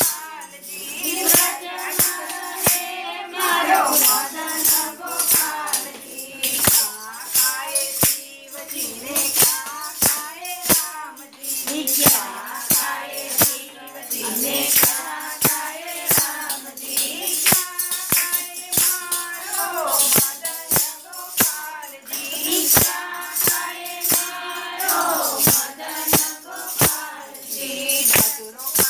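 Women singing a devotional bhajan together, with wooden kartal clappers jingling and hands clapping on a steady beat, about one and a half strikes a second.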